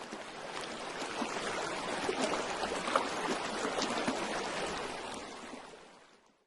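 Rushing water, a steady wash with small splashes, fading in and fading out about six seconds in.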